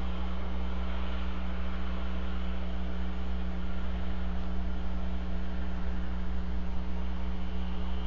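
Steady electrical mains hum with a constant hiss over it, picked up by a wildlife nest camera's audio; no calls from the eagle.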